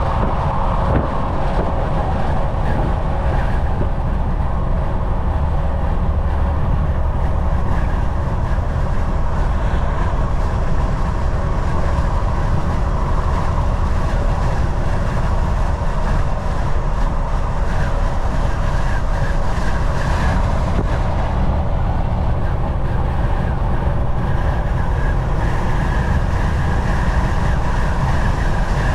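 Steady in-cab noise of a semi-truck cruising at highway speed: a low engine drone under constant tyre and road rumble.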